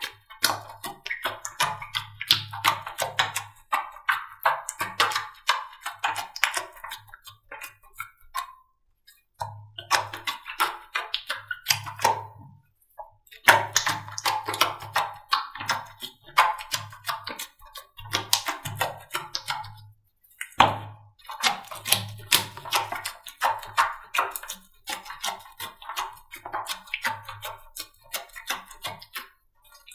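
Slime being squeezed and poked by hand, making rapid sticky clicking and popping in short runs broken by brief silences.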